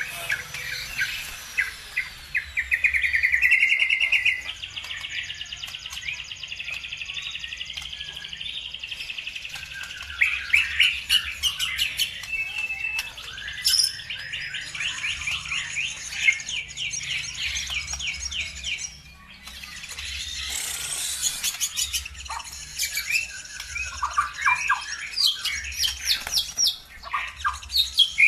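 Songbirds singing continuously in fast, high trills and chirps, with a loud buzzy trill about 3 s in and a short lull near the middle. This is a lure recording of the kind played to set caged birds singing.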